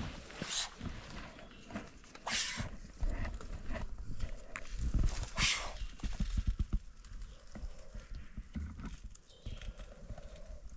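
Tasmanian black tiger snake hissing: three short, sharp hisses in the first half, over low rustling and knocking.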